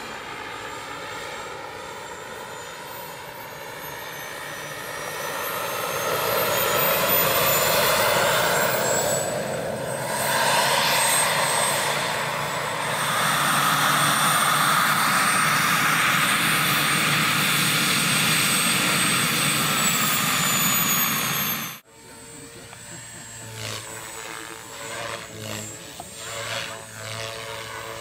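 Radio-controlled scale model helicopter flying past: steady rotor and drive noise with a high whine that slides up and down in pitch, growing louder as it passes low. About 22 seconds in it cuts off suddenly and gives way to the quieter, pulsing rotor sound of another model helicopter.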